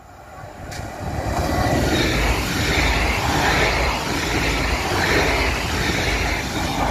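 Z2N NG double-deck electric multiple-unit train passing close by: the rumble and rush of wheels on the rails grows over about the first two seconds, then holds loud and steady as the cars go by.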